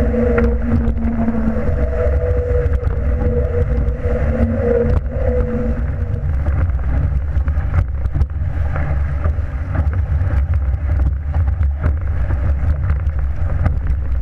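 Wind buffeting the microphone and water rushing along the hull of a Shaw 650 sportsboat sailing fast and heeled, with scattered spray hits. A steady hum sounds over the rush for the first six seconds or so, then fades.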